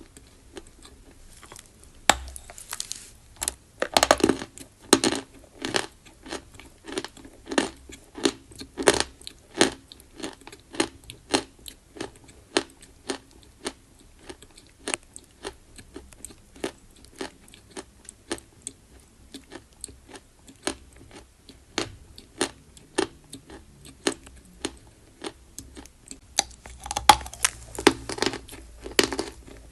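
Close-miked chalk being bitten and chewed: a run of crisp crunches, roughly two a second, starting about two seconds in, with harder bites around four seconds and again near the end.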